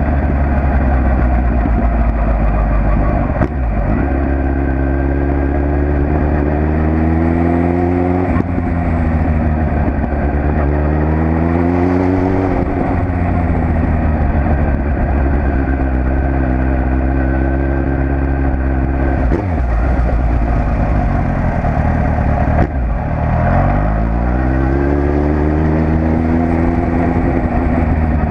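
Suzuki Bandit 1200 S motorcycle's inline-four engine pulling under way, the revs climbing and then dropping back several times as gears change, with short sharp dips before it picks up again.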